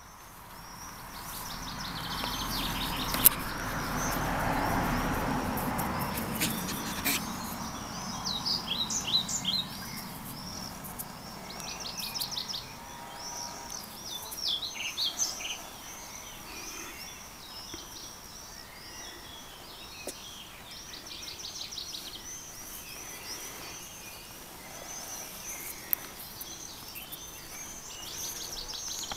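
Several songbirds chirping and singing over and over. For the first several seconds a broad rushing noise sits under them, with a sharp click about three seconds in.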